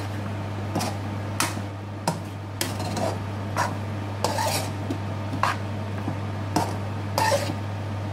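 A utensil clinking and scraping against a frying pan while stirring rice, in irregular strokes about every half second to a second, over a steady low hum.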